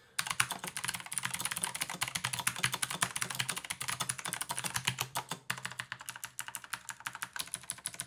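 1st Player Steampunk mechanical keyboard with clicky Kailh White switches on a steel plate, typed on quickly: a fast, continuous run of sharp key clicks, with a brief pause about five and a half seconds in.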